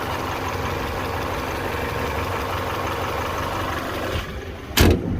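Toyota 1ZZ 1.8-litre four-cylinder engine idling steadily with a new timing chain, tensioner and guides, with no timing-chain rattle. After about four seconds it drops a little, and a single loud thump follows near the end.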